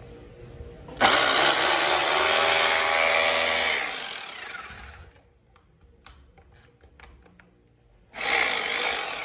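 Corded SEG rotary hammer drill switched on and run for about three seconds, then released so its motor winds down with falling pitch. It is triggered again near the end and starts winding down once more.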